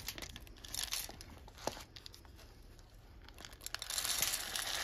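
Dry rabbit feed pellets poured from a scoop bowl into a ceramic feed crock, a rattling rustle in short spills, then a longer pour near the end.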